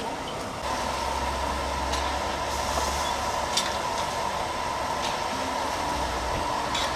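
Steady rushing noise from large woks on gas burners, with a few sharp clinks of a metal ladle and spatula against the woks as chicken heads are stir-fried.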